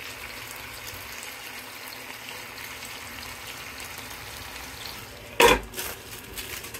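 Chicken, carrots and green peppers sizzling steadily in a frying pan. About five seconds in, a loud clank as a glass lid is set down on the pan.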